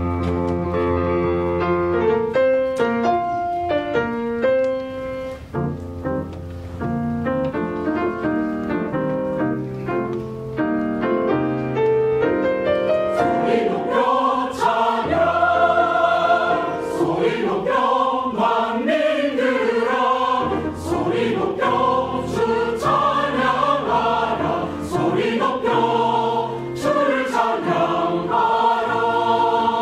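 Church choir with accompaniment: held instrumental chords over steady bass notes, then the full mixed choir comes in singing about thirteen seconds in.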